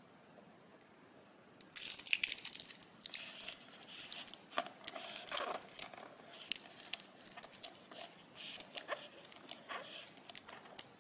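A plastic takeaway drink cup with a paper sleeve being gripped and handled, giving a run of crinkles and sharp clicks that start about two seconds in and go on irregularly.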